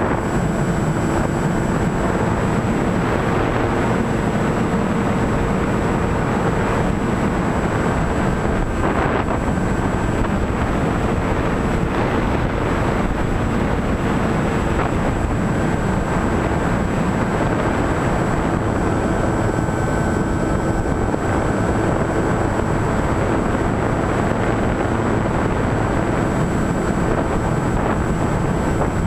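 Skywalker 1900 RC motor glider in flight, heard from its onboard camera: a steady rush of air with the electric motor and propeller humming underneath at an even pitch.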